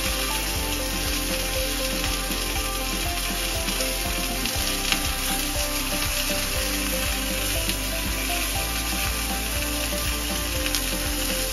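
Beef entrecôte steaks sizzling steadily in a non-stick frying pan, a dense, even crackle of fat and meat juices, with one sharper pop about five seconds in.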